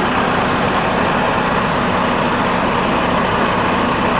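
Semi truck's diesel engine idling steadily close by, a constant low rumble.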